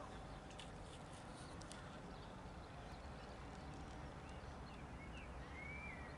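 Faint open-air ambience at a football pitch: a steady low rumble, a few faint knocks in the first two seconds, and faint wavering calls near the end.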